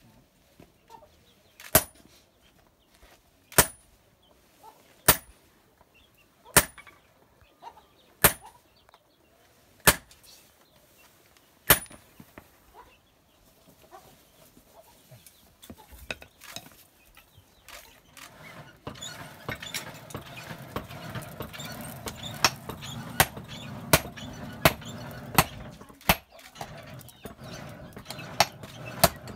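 Blacksmith's hammer striking hot iron on a small anvil: single sharp ringing blows about every second and a half, seven in a row. Later a steady low rushing noise comes in, and the blows come faster, more than one a second.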